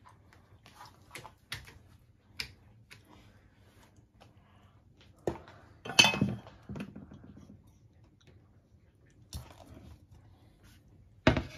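A large metal pot being handled and set down on a stovetop: scattered light clicks and knocks, a louder scraping clatter about six seconds in, and a sharp knock near the end.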